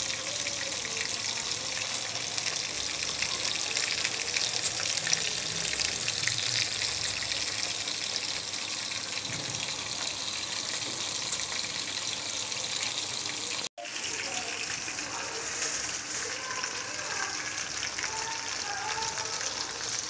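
Small minced-meat kebabs deep-frying in a wok of hot oil: a steady, dense sizzle and crackle of bubbling oil. The sound drops out for an instant about two-thirds of the way in.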